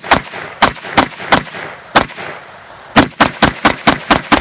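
Short-barrelled 5.56 AR-15 pistol with a 4-inch barrel firing about a dozen rapid shots: five spaced shots, a short pause, then a fast string of seven near the end at about five a second. The very short barrel gives a hard muzzle blast that is felt in the chest.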